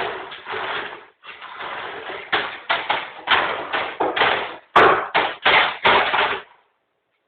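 Dog barking in a fast, rough run at a robot vacuum cleaner, about two to three barks a second, stopping abruptly near the end.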